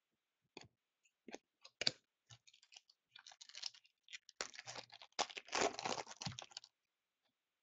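Hockey trading cards and a pack wrapper being handled: a few separate sharp clicks, then about three seconds of dense crackling rustle that stops abruptly near the end.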